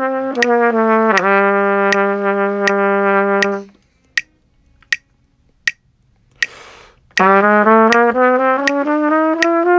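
Trumpet playing connected, slurred notes that step down to a long held low note, stop for a few seconds, then resume with slurred notes climbing upward. Steady faint clicks about every three-quarters of a second keep time throughout, and a short breathy hiss comes just before the notes resume.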